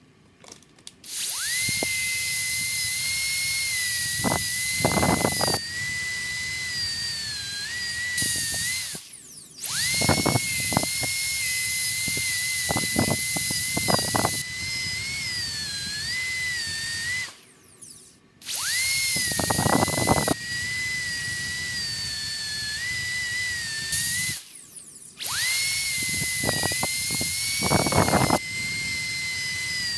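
High-speed dental handpiece whining with a steady hiss as its bur cuts a Class I cavity in a model molar. It starts about a second in and runs in four spells, stopping briefly about 9, 17 and 24 seconds in. Its pitch wavers slightly, with short spells of rougher grinding noise as the bur cuts.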